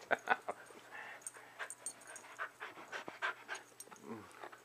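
Shetland sheepdogs playing right at the microphone: panting, with many short, irregular mouth and movement noises.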